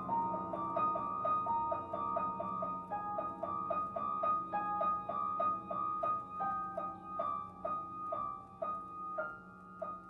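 Background music: a piano-like keyboard playing a steady run of short repeated notes over a held low note, growing quieter toward the end.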